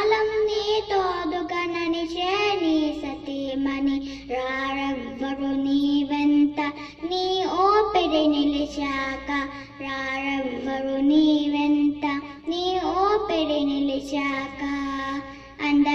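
A young girl singing a Telugu tarana solo, in long held notes with sliding, ornamented turns between them.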